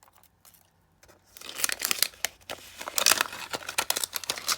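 Thin plastic wrapper crinkling and tearing as it is unzipped and peeled off a Mini Brands capsule ball, a quick run of crackles that starts about a second in.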